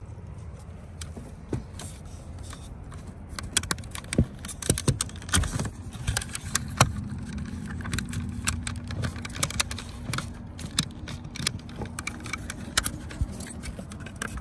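Irregular metallic clicks, taps and rattles of hand tools working a stubborn part of a pickup's door panel loose, over a low steady hum that grows firmer about halfway through.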